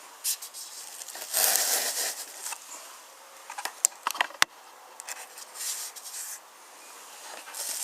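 Cardboard toy box being handled, its contents scraping and rubbing as they are slid out. There is a longer scrape about a second and a half in, and a few light knocks and clicks around the middle.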